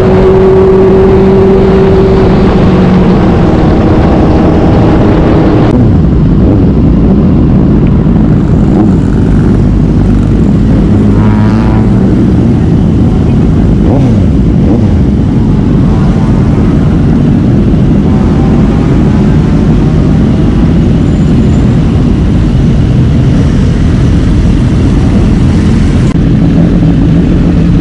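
Motorcycle riding at road speed, its engine running under a heavy, steady rush of wind noise. A steady engine note in the first few seconds eases down and drops away about six seconds in; fainter engine notes rise and fall later.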